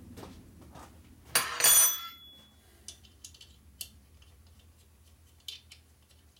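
Metal hand tools and parts clattering on a workbench: a few clinks, then a loud clatter about a second and a half in that rings briefly, followed by scattered light metallic ticks as parts are handled.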